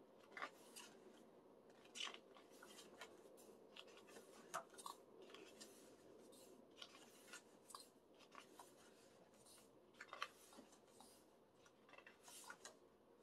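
Faint rustling and crinkling of large glossy photo-book pages being handled and turned, a scatter of short papery clicks and swishes.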